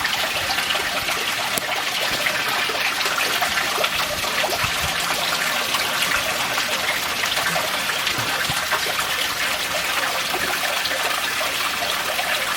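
Steady trickling and splashing of water running into a koi pond.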